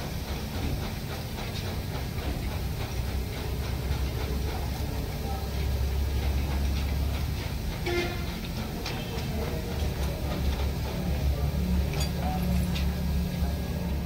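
A steady low mechanical rumble, with a few faint light clicks of metal parts being handled.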